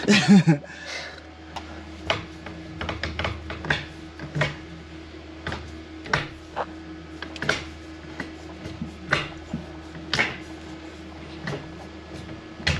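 Hand tools and metal parts clinking and knocking irregularly, about once a second, during work on a Porsche 944's shifter linkage. A faint steady hum runs underneath.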